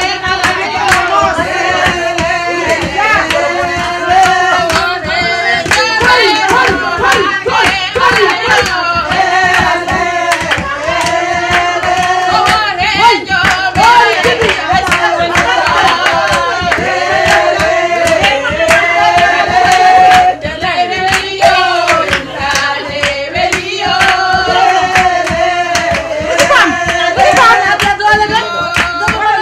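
Women singing a song with lively hand clapping keeping the beat.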